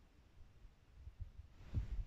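Low, irregular rumbling and thumping on the microphone, growing louder near the end with a brief rush of noise.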